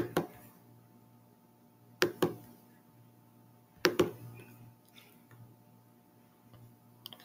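Three pairs of sharp computer mouse clicks, about two seconds apart, over a steady low electrical hum.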